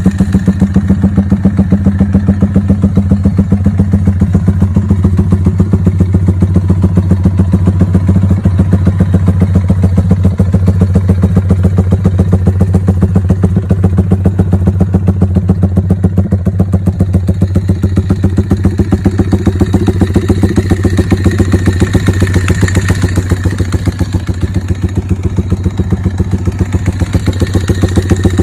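Yamaha Y15ZR's 150 cc single-cylinder four-stroke engine idling through an aftermarket exhaust, a steady, fast, even pulsing beat.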